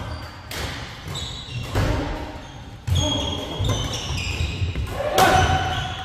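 Badminton rackets striking the shuttlecock in a doubles rally: four sharp hits spaced one to two seconds apart, with court shoes squeaking on the wooden floor between them.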